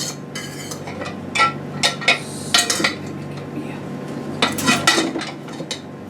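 A metal utensil clinking and scraping against a baking dish as spaghetti is spread over a casserole, in irregular clusters of sharp clinks with a pause in the middle.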